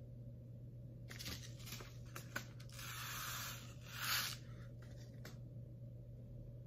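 A paper seed packet being handled: quiet rustling and crinkling with a few sharp clicks, starting about a second in, swelling twice and loudest just after four seconds, then stopping a little after five seconds.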